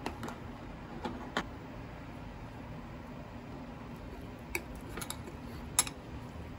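Scattered light clinks and taps of a metal spoon against a ceramic plate while scooping melted cheese, the sharpest clink near the end, over a steady low hum.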